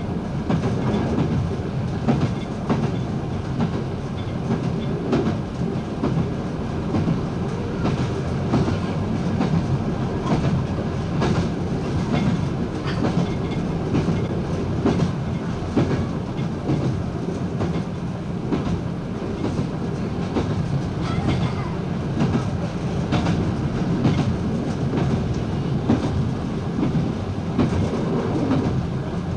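Diesel multiple unit running at speed, a steady rumble with the wheels clicking irregularly over the rail joints.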